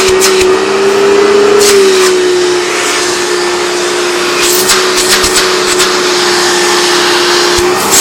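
Hoover Turbopower 3 U2880 upright vacuum cleaner's motor running with a steady whine. The pitch rises slightly, then drops back about two seconds in. Scattered clicks run throughout.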